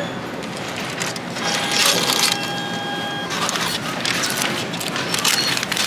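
Self-checkout thermal receipt printer printing the receipt: a steady whine for about two seconds, over the noise of a busy store.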